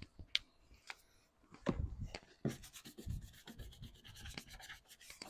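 Hand scrubbing on the mini truck's painted body: a few scattered rubs and knocks, then from about halfway a quick run of back-and-forth strokes.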